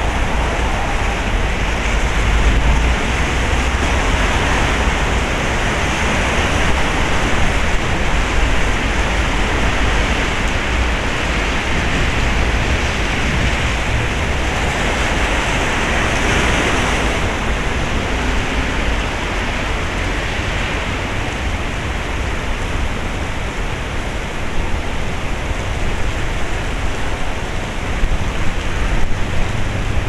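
Heavy typhoon rain pouring down as a loud, steady rushing hiss, with wind rumbling on the microphone. The rush swells for a few seconds about halfway through.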